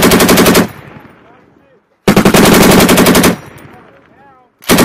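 M240B 7.62 mm belt-fed machine gun firing short bursts of rapid shots: one ends just under a second in, a full burst of just over a second starts about two seconds in, and another starts near the end. Each burst trails off in an echo.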